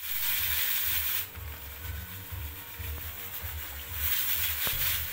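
Water pouring into a non-stick pan over a slab of raw pork belly, a splashing hiss about four seconds in. A similar hiss fills the first second or so.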